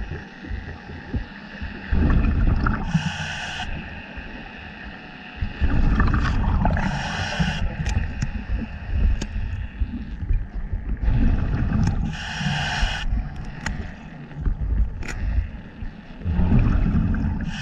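Scuba diver breathing through a regulator underwater: four breaths, each a short hiss on the inhale followed by a low bubbling rumble as the air is exhaled, about every four to five seconds, with a few light knocks.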